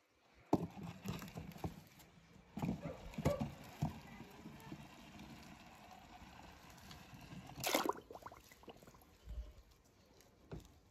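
A plastic toy monster truck's wheels clattering and knocking over wooden craft sticks and blocks in irregular bursts, then one loud splash a little under eight seconds in as the truck drops into a tub of water.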